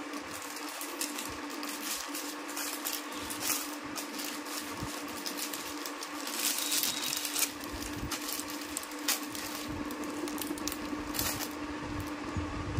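Plastic packaging crinkling and rustling as sarees wrapped in it are handled. Many small crackles, with a denser burst of crinkling about halfway through, over a steady low hum.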